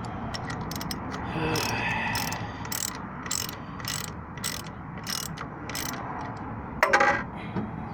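A socket ratchet clicking in regular strokes, about every half second, as it turns the adjusting bolt to tighten a slack alternator belt. A louder clack comes near the end.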